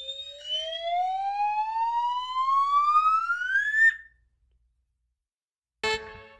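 Intro sound effect: one tone gliding steadily upward in pitch for about four seconds, like a siren wind-up, then cutting off abruptly. After a short silence, music starts faintly near the end.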